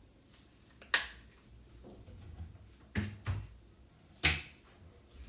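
Four short, sharp clicks, about a second in, twice around three seconds, and once more a second later, over a faint low hum.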